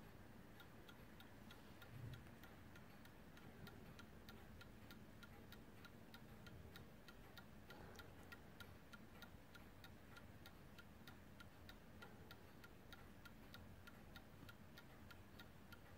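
Warmink 8-day bracket clock's pendulum movement ticking quietly, with quick even beats of about three a second that begin as the pendulum is let go. There is a soft low bump about two seconds in.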